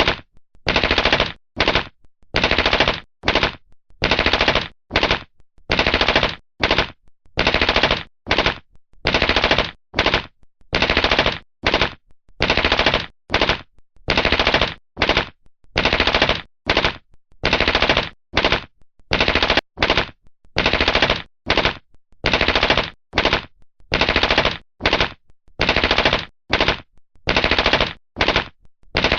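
Heckler & Koch MP5 submachine gun firing short bursts of automatic fire, one after another with brief pauses between, about forty bursts in all.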